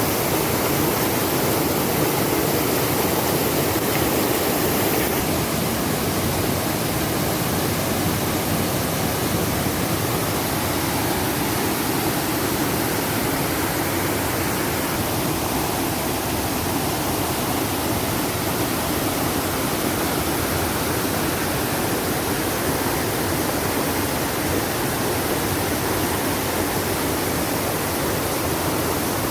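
Waterfall: a steady, loud rush of falling water, slightly louder for the first five seconds or so.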